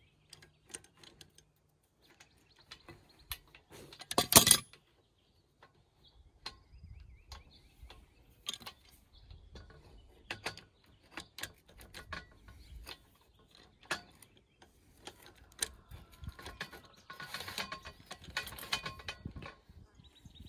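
Metal clicks, clinks and knocks as the steel clamp brackets and frame of a chainsaw mill are handled and adjusted. There is one louder clank about four seconds in and a busier run of clicking near the end.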